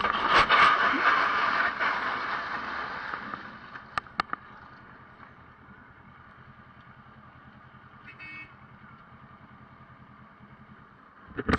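Motorcycle crash: the bike goes down and slides scraping and clattering along the asphalt, loudest in the first two or three seconds and fading. Two sharp knocks follow about four seconds in, then a quiet low engine rumble continues, with a brief loud burst near the end.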